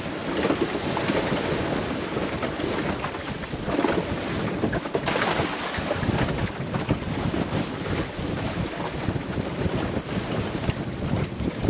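Wind buffeting the microphone over the steady rush and splash of water along the hull of a small open sailing dinghy under way in a choppy sea.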